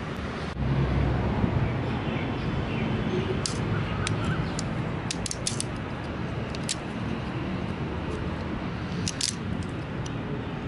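Scattered small, sharp plastic clicks from an impact sprinkler head's arc-limiting collar and wire trip clip being handled, over a steady low outdoor rumble.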